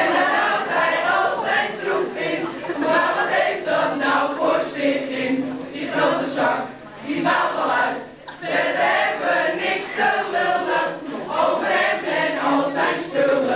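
A mixed group of young male and female voices singing together in chorus, with no clear instruments, breaking off briefly a little past halfway.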